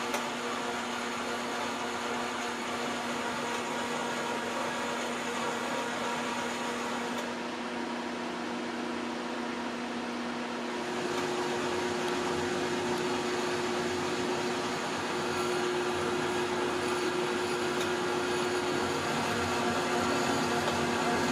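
A workshop machine running steadily: a motor hum over a hiss of noise, with a second, higher hum coming in about halfway through as the sound grows slightly louder.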